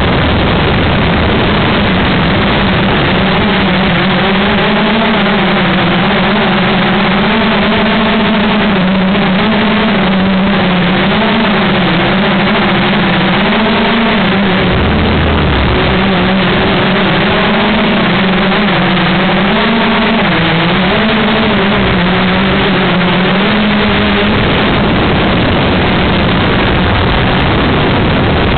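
Loud wind rush on the microphone of a flying four-rotor drone, with the hum of its motors and propellers wavering up and down in pitch. The hum fades out about three-quarters of the way through, leaving the wind noise.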